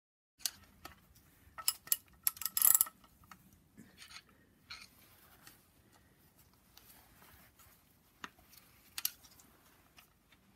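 Light metallic clinks and rattles of a roller chain and sprocket being worked into place by hand on an engine block. The sharpest cluster of clinks comes about two to three seconds in, with scattered single clicks after it.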